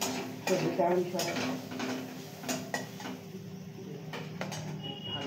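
Kitchen containers and utensils knocking and clinking as they are handled: several separate knocks in the first three seconds and one more after about four seconds, over a steady low hum.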